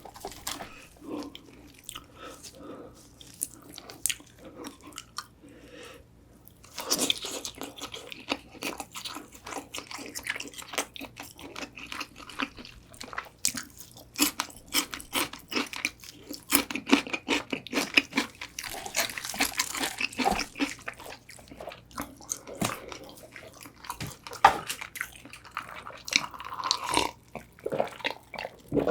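Close-miked biting, crunching and chewing of crispy sauced fried chicken. Softer, wetter chewing at first, then louder, dense crunching of the batter from about a quarter of the way in.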